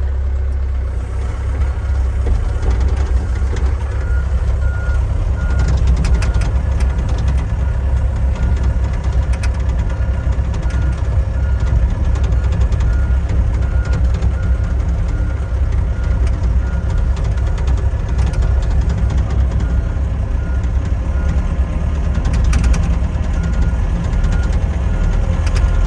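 Excavator's diesel engine running steadily with a low hum, while its travel alarm beeps rapidly in runs from a few seconds in, as the machine moves off on its tracks. A few sharp clicks or clanks come through now and then.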